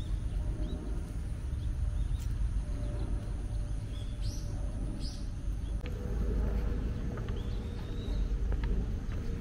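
Outdoor ambience: a steady low rumble, with a few short, rising bird chirps about four and five seconds in and a fainter one later.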